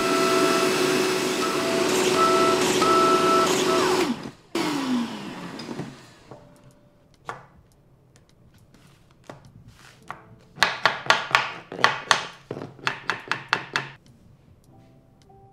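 Makita biscuit joiner running with a shop vacuum pulling on its dust hose, cutting a slot into a plywood edge. Both are switched off about four seconds in and wind down with falling pitch. Near the end comes a fast run of about a dozen sharp knocks.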